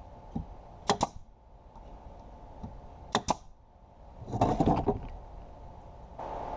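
A nail gun firing into plywood: two pairs of sharp snaps, about a second in and about three seconds in. A brief scraping rustle of the plywood panel being handled follows about four and a half seconds in.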